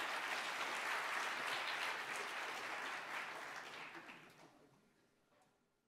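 Audience applauding, the applause fading away after about four seconds.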